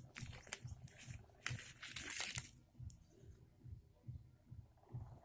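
Close-up handling noise: a few sharp clicks and a crinkling rustle in the first half, then quieter. Under it is a faint low pulsing, about three beats a second.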